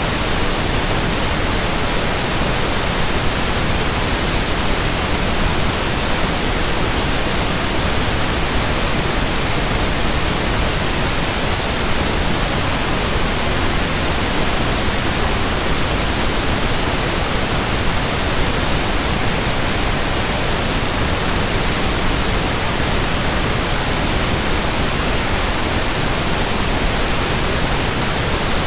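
0 dBFS pink noise test signal: a steady, unbroken hiss spread evenly across the whole audio range, with no change in level.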